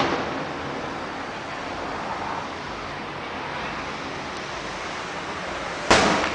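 Fireworks bursting: the ringing tail of one sharp bang fades at the start, and a second sharp bang comes near the end. A steady rushing background runs between them.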